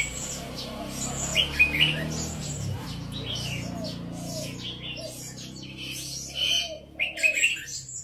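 Red-whiskered bulbul singing short, quick warbled phrases in several bursts, the loudest near the end. Behind it a softer string of low, repeated notes starts about two and a half seconds in.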